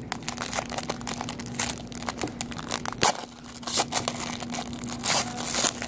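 Trading card packaging, plastic and foil wrapper, being torn open and crinkled: irregular crackling with a few louder snaps about three seconds in and near the end.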